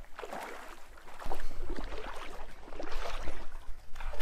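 River water splashing and sloshing around a hooked trout being played in close to the net. A low rumble joins about a second in.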